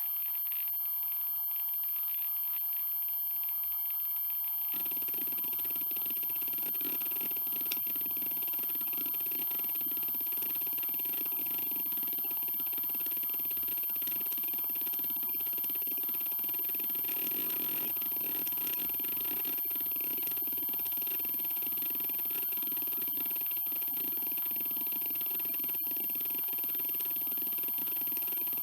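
Hitachi Deskstar 7K80 80 GB 7200 rpm hard drive spinning with a steady high whine while its heads seek under an HDMotion test pattern. The seek noise thickens about five seconds in, and there is a single sharp tick a few seconds later.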